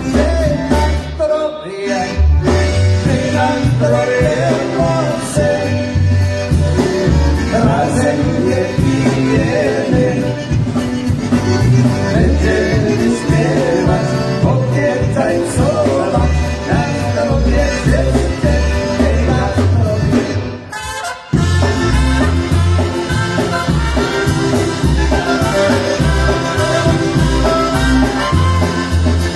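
Polka band playing live with a steady bass beat, briefly breaking off about two-thirds of the way through before coming back in.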